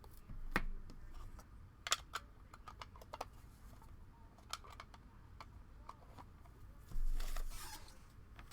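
Scattered light clicks and taps of trading cards being handled, with two short rustles, one about half a second in and one near the end.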